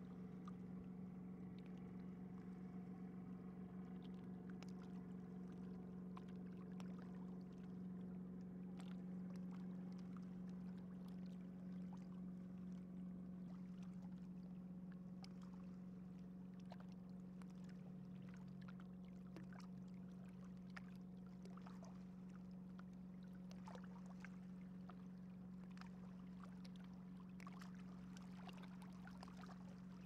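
A boat's motor running steadily as a low, even hum, with faint small splashes and ticks of water against the hull.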